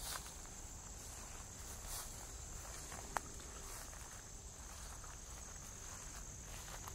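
Steady high-pitched chorus of crickets, with the faint footsteps of someone walking through woodland and a single sharp click about three seconds in.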